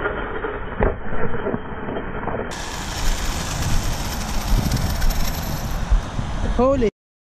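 1/8-scale Arrma Kraton EXB RC truggy running hard on 6S: tyres churning over loose ground with scattered knocks. Near the end its motor whine rises sharply as it spins up, then the sound cuts off suddenly.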